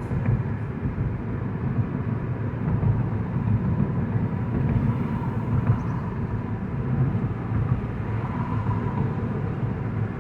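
Steady engine and road rumble inside the cabin of a 2009 Mazda 5 on the move, with no shifting or fault noise standing out.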